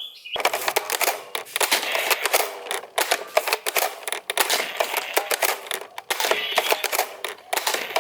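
Plastic toy blasters being handled: dense, irregular clicking and clattering of hard plastic.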